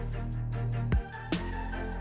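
Background music with a steady electronic beat: kick-drum hits about twice a second over sustained bass notes.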